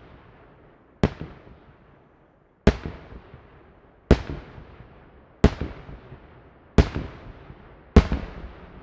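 Aerial firework shells bursting one after another: six sharp bangs about every second and a half, each followed by an echo that dies away.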